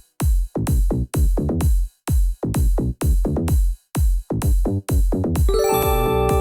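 Electronic dance music with a steady drum-machine beat of about two kicks a second; held synthesizer notes come in near the end.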